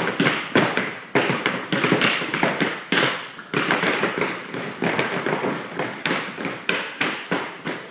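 Tap dance steps from three dancers dancing in unison: a quick, irregular rhythm of sharp taps and heavier stamps, several a second, with no music.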